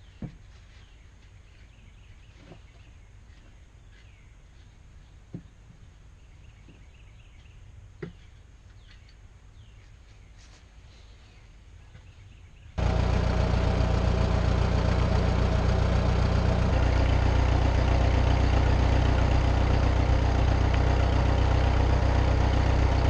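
Quiet outdoor ambience with faint bird chirps and a few light knocks, then, a little past halfway, an abrupt switch to a vehicle engine running with a loud, steady drone.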